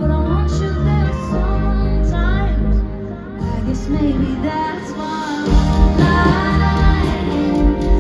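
Live pop song heard from the crowd through a festival PA: a woman singing over a band with electric guitar. The bass and drums come in fuller and louder about five and a half seconds in.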